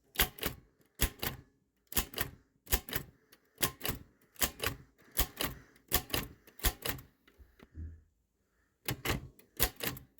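Typewriter keys being struck in quick, uneven runs of sharp clacks, with short pauses between groups and a longer pause before a last rapid flurry near the end.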